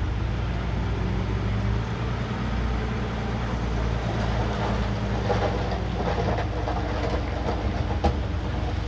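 Komatsu D31PX crawler bulldozer at work: its diesel engine running steadily under a clanking, rattling clatter that grows louder about halfway through, with one sharp knock near the end.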